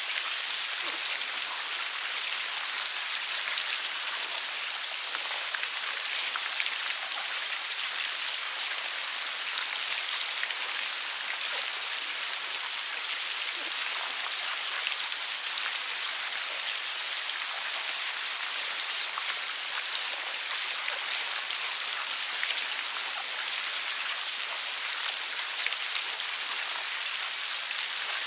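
Steady, dense crackling like fine rain, from a mass of maggots wriggling and feeding in bran inside a plastic bag.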